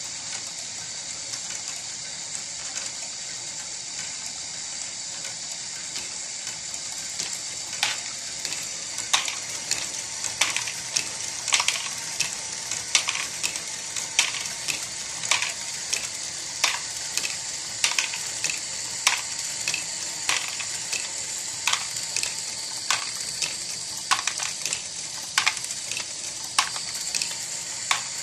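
Lego Great Ball Contraption module with strain wave gearing, driven by an aftermarket motor, running with a steady mechanical whir of plastic gears. From about seven seconds in, plastic balls clack through the mechanism about once or twice a second.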